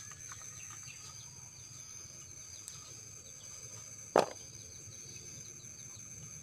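Insects droning in one steady high-pitched tone, with a few faint bird chirps and a single sharp knock about four seconds in.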